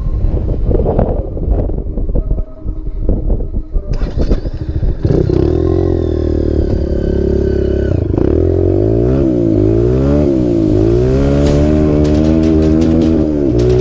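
Single-cylinder four-stroke dirt bike engine on a dune trail. From about five seconds in it revs hard, its pitch rising and falling again and again as the throttle is worked, after a few seconds of rough, uneven noise.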